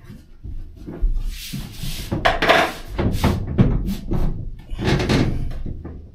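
Irregular knocks and scraping as a plywood lining panel is shifted and pressed into place against a van's sheet-metal cargo wall, with a stretch of scraping about a second in.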